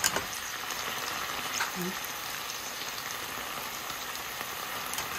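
Food frying in a hot pan, sizzling steadily.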